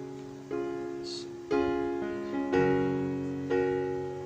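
Background music: piano chords struck about once a second, each fading before the next.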